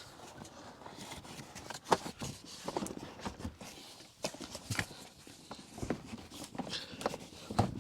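Scattered light knocks and clicks with some rustling, irregular and a second or so apart: handling noise as a car seat is moved and fitted.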